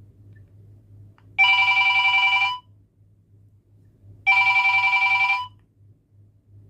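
Nokia 9300 Communicator ringtone playing from its speaker: a steady electronic ring tone sounds twice, each ring a little over a second long, about three seconds apart.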